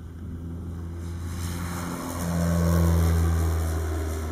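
MC30E Luciole's two-blade propeller, driven by a 26 hp electric motor, giving a low steady hum as the plane takes off and climbs past. The hum grows to its loudest about three seconds in, then starts to fade.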